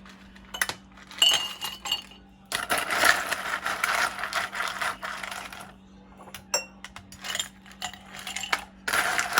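Ice cubes dropping and clinking into cups. There are a few separate clinks at first, then about three seconds of continuous clattering as a batch of ice goes in, then scattered clinks.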